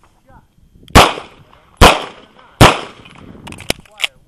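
Three close pistol shots from a semi-automatic handgun, about 0.8 s apart, the first about a second in, each cracking sharply and ringing off briefly. Fainter clicks and a couple of sharper ticks follow near the end.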